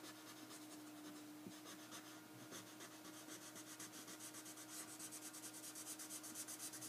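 Felt-tip marker scratching on paper in quick back-and-forth strokes as it colours in a solid black area. The strokes are faint, growing louder and faster over the last couple of seconds.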